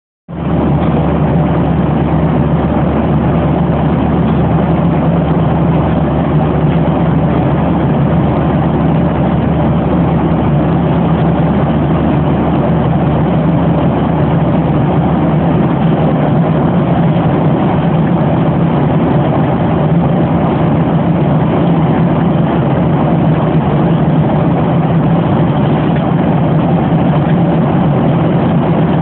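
Steady cabin noise of an airliner at cruise altitude, heard from inside the cabin: an even rush of jet engines and airflow with a constant low hum underneath.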